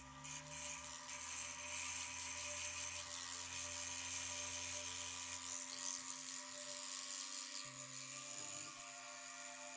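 Small foot-pedal-controlled rotary tool with a burr grinding a ceramic teapot piece: a steady, high grinding hiss that eases a little near the end.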